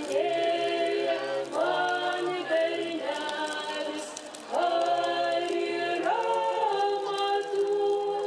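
Unaccompanied choir singing, several voices in harmony holding long notes and moving together from phrase to phrase.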